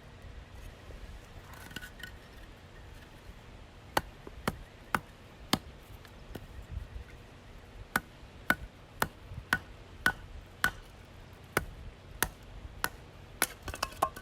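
Sharp chopping knocks, about two a second: a short run of four about four seconds in, then a longer, steady run of about a dozen from about eight seconds on.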